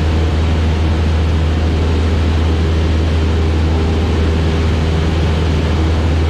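Cabin drone of a single-engine propeller plane in flight: the piston engine and propeller run steadily as a deep, even hum, with a constant rush of airflow noise over it.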